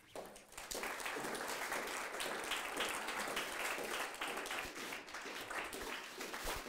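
Audience applauding, building up within the first second and then going on steadily.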